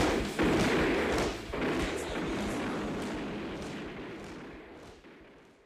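Echoing stamps of marching boots, a sound effect closing a recorded thrash metal track. The stamps come roughly every two-thirds of a second and fade out to silence near the end.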